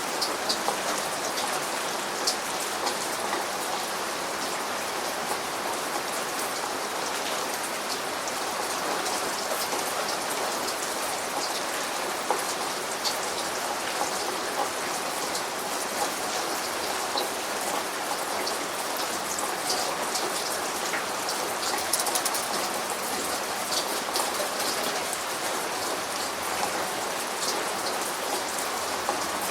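Steady rain, an even hiss with many sharp drops ticking on a hard surface.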